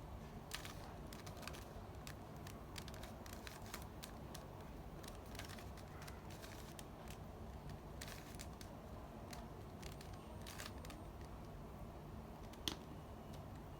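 Rubik's cube being turned and handled in the hands: quick, irregular light plastic clicks and clacks, with one sharper click near the end, over a low steady hum.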